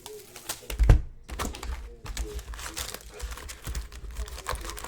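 Plastic wrapping crinkling as card boxes and packs are handled on a table, with a loud thump about a second in.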